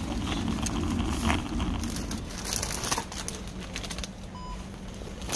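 Plastic crisp bag crinkling as it is picked up and handled, over low supermarket background noise, with a short faint electronic beep about four seconds in.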